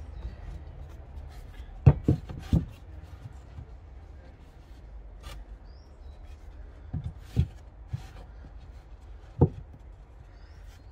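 Heavy treated 4x4 timber fence posts being lifted, set down and shifted on pine boards to fit a half-lap joint. They give a few dull wooden thumps: three close together about two seconds in, a pair around seven seconds, and a single one near the end.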